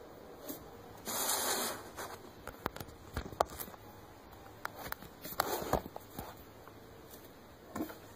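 Handling noises from a plastic action figure being moved about by hand and set on a wooden table: a short rustle about a second in, then scattered light clicks and taps.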